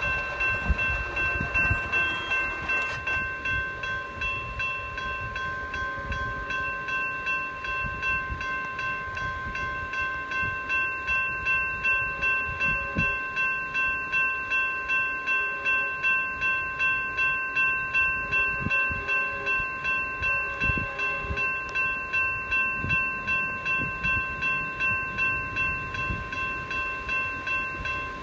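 Railroad grade-crossing warning bell ringing steadily, about two strokes a second: the crossing is activated for an approaching train.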